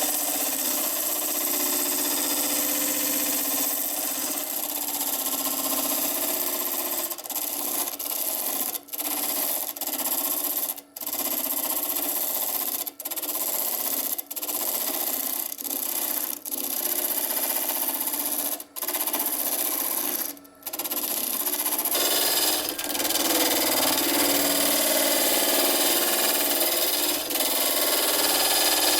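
Wood lathe spinning a driftwood-and-resin piece as it is worked, giving a steady rubbing hiss. The hiss is broken by short, sudden dropouts every second or two through the middle, and turns fuller for the last several seconds.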